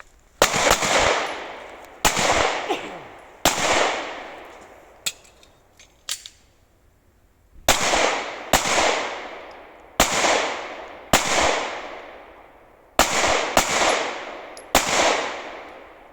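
9 mm CZ pistol firing about ten shots in uneven groups during a timed IDPA course of fire, each shot with a long echoing tail. There is a pause of about three seconds midway, and a few faint sharp clicks fall between shots.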